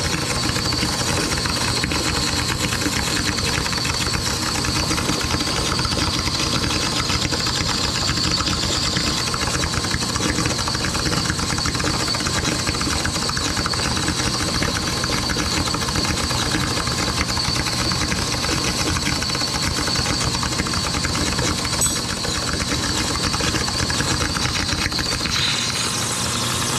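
Vacuum pump motor running steadily, pulling a vacuum on a Ford engine's crankcase so the oil stays in while the drain plug is out.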